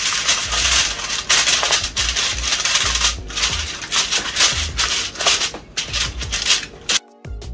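Aluminium foil crinkling and crackling as it is pressed and crimped down over the rim of a disposable aluminium foil pan, with a few dull knocks of the pan on the counter. Music comes in near the end.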